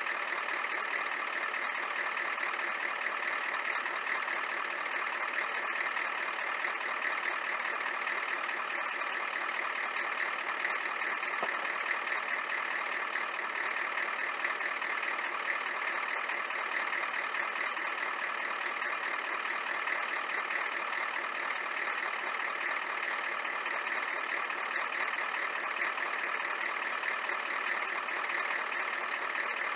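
1993 Ford F-350's 7.3-litre IDI V8 diesel idling steadily, warming up after a cold start.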